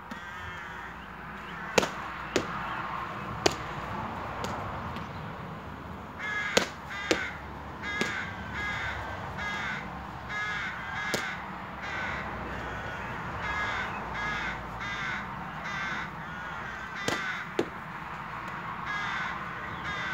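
Sharp knocks of a hurley striking a sliotar and the ball hitting a house wall, about ten at uneven intervals, over a background of many crows cawing, their calls coming thicker from about six seconds in.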